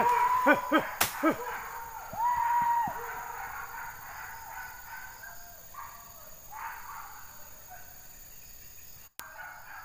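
Hunting dogs giving tongue in a chase: a quick run of yelps in the first second or so, one long drawn-out bay about two seconds in, then fainter, more distant yelps. A sharp click sounds about a second in.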